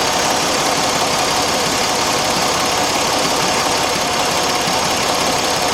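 A Jeep Grand Cherokee's 3.7-litre V6 idling steadily with the hood open, all coils connected and no misfire showing on the scan tool.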